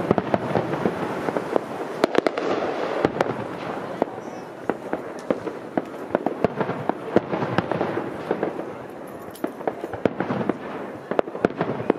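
Fireworks display going off: an irregular run of sharp bangs and pops, often several a second.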